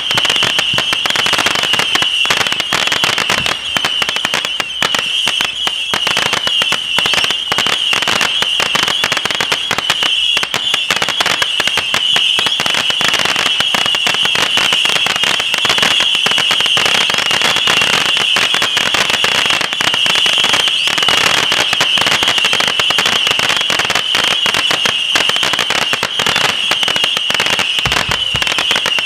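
Fireworks display: dense, continuous crackling from crackling-star effects and bursts, over a steady high-pitched whine.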